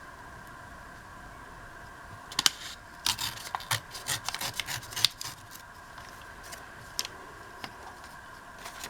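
Paper scraps being handled: a run of short rustles and taps in the middle, with one more a little later, over a faint steady hum.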